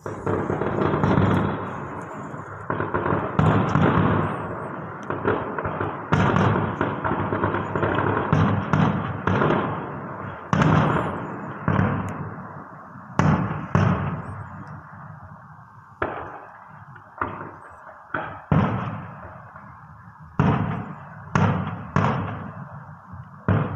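Aerial firework shells bursting. A dense, overlapping barrage of bangs fills the first half, then gives way to single sharp bangs about a second apart, each trailing off in a rolling echo.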